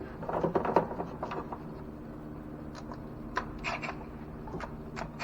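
Light clicks and scrapes of hand tools and metal parts being handled during engine work, a cluster in the first second and a half and a few more later, over a steady low hum.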